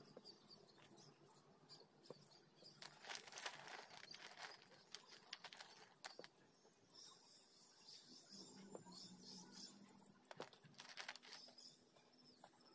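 Chunks of dry grey clay being picked through and shuffled by hand in a metal bowl: faint dry clicking and scraping in several bursts.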